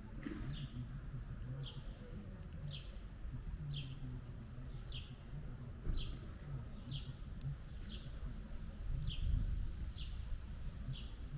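A small bird calling over and over, a short high chirp that falls in pitch, repeated about once a second at a steady pace.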